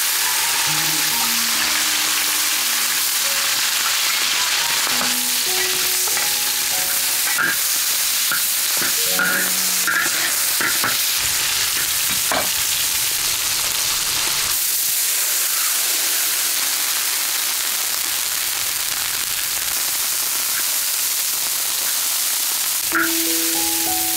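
Chili, minced garlic and ginger sizzling steadily in hot oil in a large iron wok, with a metal spatula scraping and clicking against the wok as they are stirred.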